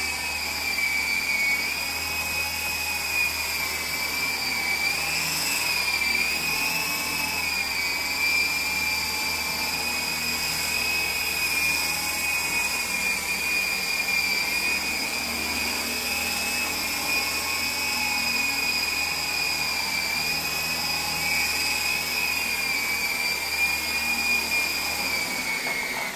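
MJX T-10 coaxial RC helicopter in flight: a steady high whine from its electric motors and spinning rotors, the pitch wavering slightly as the throttle changes. The sound drops away at the very end as it sets down.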